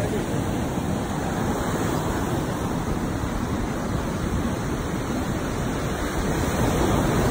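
Ocean surf breaking and washing up the beach, a steady rush, with wind on the microphone.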